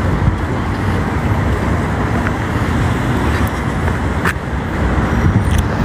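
Steady road-traffic noise from passing cars on a city street, a continuous low rumble of engines and tyres.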